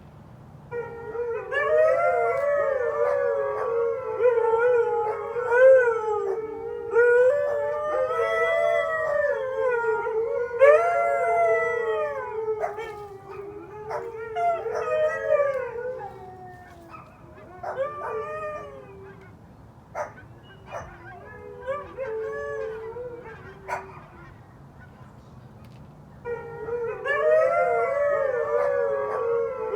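Several huskies howling together in overlapping, wavering calls. The chorus thins to scattered shorter calls about halfway through and swells again near the end.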